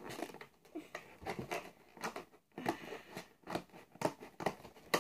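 Handling of a Monster High doll box: irregular clicks, crackles and rustles of its cardboard and plastic packaging.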